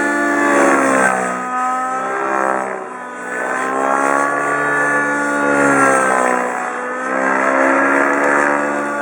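Align T-REX 700N nitro RC helicopter in flight: its glow engine and rotor run with a steady pitched drone that sags and climbs back twice as the throttle and load change during manoeuvres.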